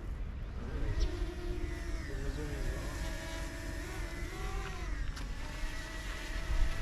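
A motor running steadily, its hum wavering gently up and down in pitch, over a low rumble.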